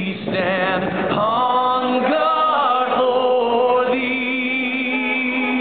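Singing over a stadium loudspeaker system: long held notes that waver, changing pitch about once a second.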